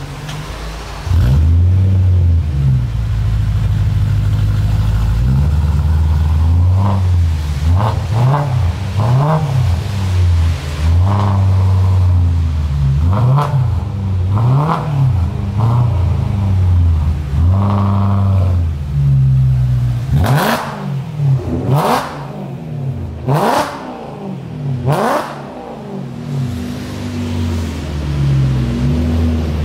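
BMW E92 M3's 4.0-litre V8 through a decatted SuperSprint exhaust with unsilenced X-pipe and F1 race mufflers. It comes in loud about a second in and idles, then is revved again and again, with a run of sharp, quick blips to high revs past the middle. Near the end the car pulls away at lower revs.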